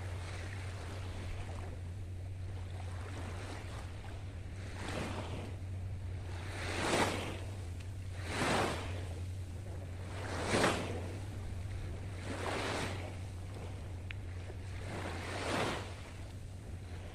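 Small sea waves breaking and washing up the beach, each wash swelling and fading, about six of them a couple of seconds apart.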